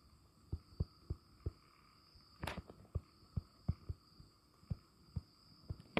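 Stylus writing on a tablet screen: a string of soft, dull taps at an uneven pace, about two or three a second, with one sharper tap about two and a half seconds in, over a faint steady high whine.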